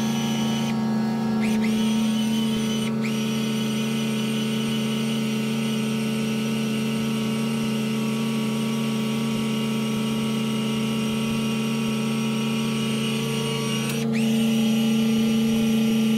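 Electric truck-camper jacks running together, a steady motor whine as they lift the camper, the tone shifting slightly near the end.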